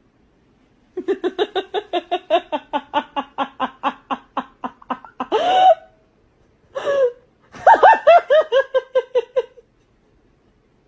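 Hearty laughter: a long run of quick 'ha' pulses, about five a second, then a couple of short squeals and a second run of laughs falling in pitch.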